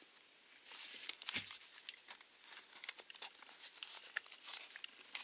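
Plastic housing of an electric drill being pressed and fitted back together by hand: a run of small plastic clicks, taps and scrapes, with one sharper knock about a second and a half in.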